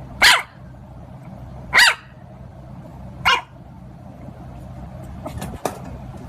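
A puppy barking three times, about a second and a half apart, each bark short, high and dropping in pitch. A few faint clicks near the end.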